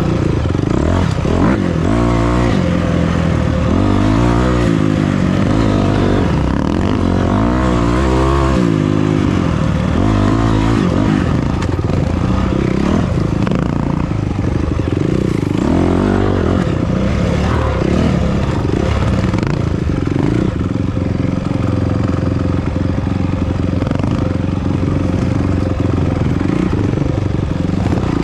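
Off-road vehicle engine being ridden hard, its pitch rising and falling quickly with the throttle, over steady wind and rattling noise.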